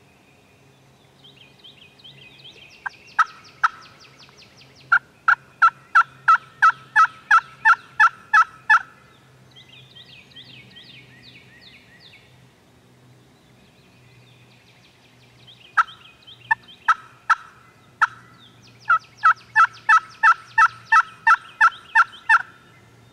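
Wild turkey yelping: two long runs of loud yelps, a dozen or more notes each at about four a second, each run led in by a few scattered yelps. Fainter, higher chirping fills the gaps between the runs.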